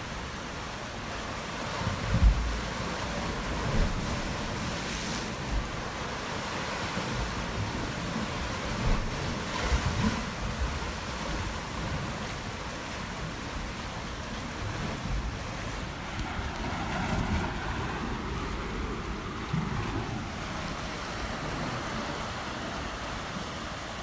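Ocean waves breaking and washing onto a shore: a steady rush of surf with irregular low thuds as waves break, the strongest about two seconds in.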